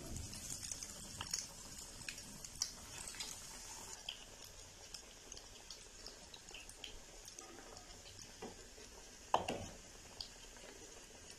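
Breaded chicken-and-vegetable cutlets shallow-frying in hot oil in a pan: a soft, steady sizzle with scattered small pops and crackles. Near the end there is a single louder metal clink, the slotted spoon touching the pan.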